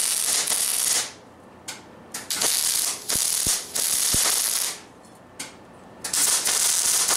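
MIG wire-feed welder arc crackling and hissing in several bursts about a second long with short pauses between, as the weld is laid in short stitches. The feed is uneven, which the owner blames on worn drive wheels that have play in them.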